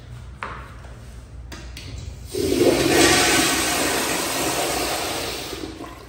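Kohler commercial toilet flushing. A sharp click about half a second in, then a loud rush of water from about two seconds in that slowly dies away.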